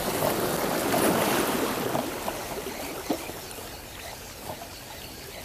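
Water rushing and splashing, swelling for about two seconds and then slowly fading.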